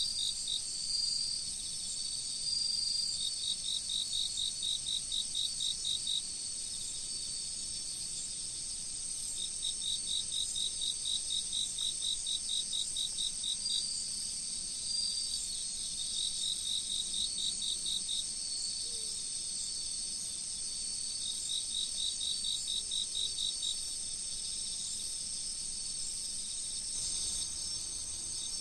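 Chorus of autumn insects at night: crickets and katydid-type singers. A steady high trill runs throughout, and one insect sings bouts of rapid chirps, about five a second, for two to four seconds at a time with pauses between.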